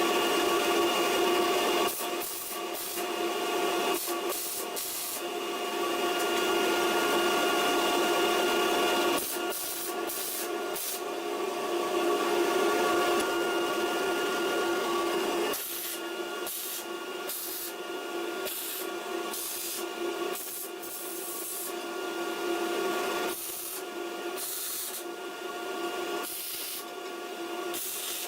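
Arc welding on steel plate and strap iron: intermittent stretches of crackling arc, stopping and starting several times as joints are tacked and run, over a steady hum.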